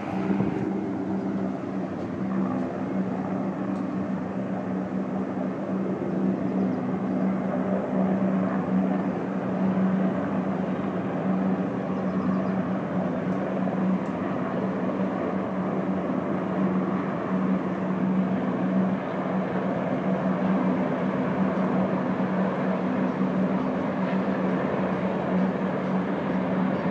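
A formation of many helicopters flying over, their rotors and engines blending into one steady drone with a low hum.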